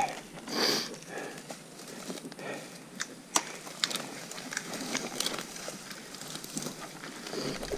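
Footsteps and crunching forest-floor brush, with a few sharp twig snaps, as a person scrambles down a steep slope with an electric dirt bike whose motor is switched off.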